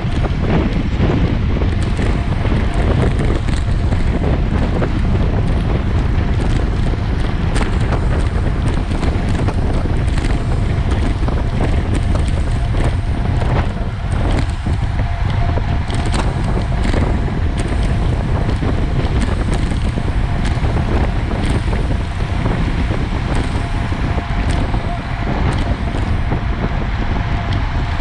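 Heavy wind buffeting the microphone of a camera on a moving bicycle, with frequent small knocks and rattles from the ride over rough ground.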